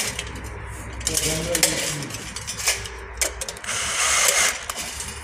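Cordless drill running in short bursts against a thin galvanized steel drywall track, boring or driving screws into its flange to hold the bent curve: one burst about a second in and a louder one near the end, with sharp metallic clicks and clinks of the thin steel between.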